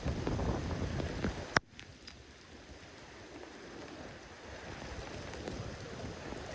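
Typhoon rain and wind noise, loud at first, dropping off sharply with a click about a second and a half in, then steady rain falling more quietly.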